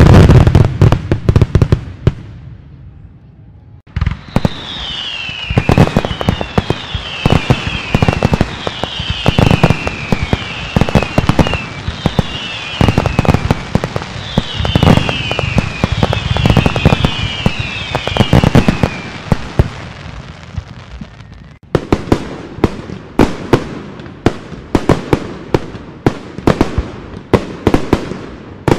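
Big fireworks display: heavy bangs at the start, then a long stretch of dense crackling with a run of high whistles that fall in pitch. From a little past the middle onward come rapid sharp cracks and bangs of bursting shells.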